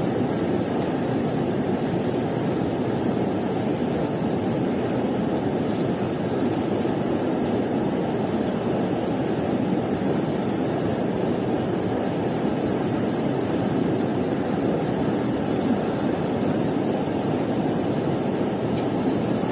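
A steady, even rushing noise with no distinct events and no change in level.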